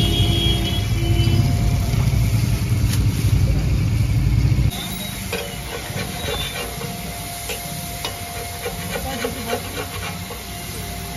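Food sizzling on a large flat steel street-food griddle. For the first few seconds a loud low rumble covers it, then it cuts off suddenly. After that the sizzling is quieter, with a quick run of metal spatula clinks and scrapes on the griddle.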